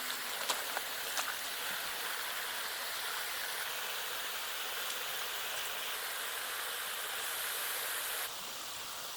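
Steady rushing water noise, with a few faint ticks in the first two seconds; the noise changes level abruptly a few times.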